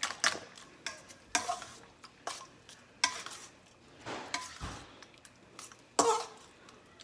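Fork beating raw eggs in a stainless steel mixing bowl: irregular scraping and clinking of metal on metal, with a few louder strokes.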